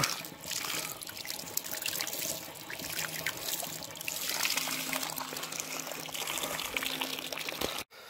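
Dirty water pouring steadily out of the threaded outlet fitting of an old gas water-heater tank, splashing over a hand and onto the ground: sediment and gunk being flushed out of the tank.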